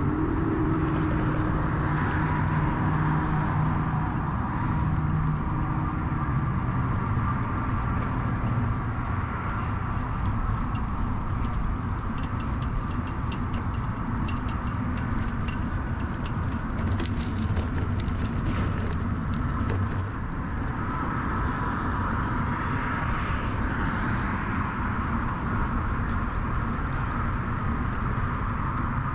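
Steady ride noise of an early-1970s Peugeot UJ-10 ten-speed bicycle: tyre rumble and wind on the microphone, with a spell of quick ticks in the middle lasting several seconds.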